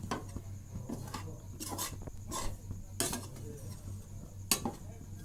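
A utensil scraping and clinking against a kerahi (wok) as rice flour is stirred while it dry-roasts, in irregular strokes over a steady low hum.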